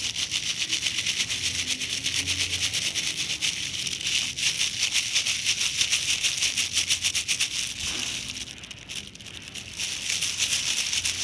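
Spoon working a runny flour-and-water mix in a bowl: fast, rhythmic scraping and rattling, many strokes a second, easing off briefly about eight seconds in before picking up again.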